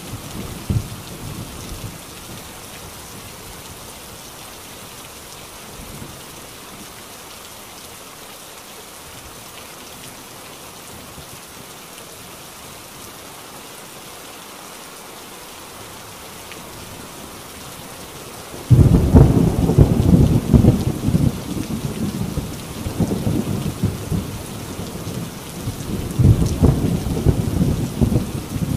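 Heavy rain drumming steadily on a tin roof, with thunder. A low rumble fades out in the first couple of seconds. About two-thirds of the way in a loud thunderclap breaks suddenly and rolls on, swelling again near the end.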